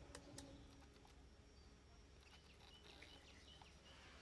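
Near silence: faint outdoor background with a low hum, a few soft clicks near the start and a few faint high chirps in the second half.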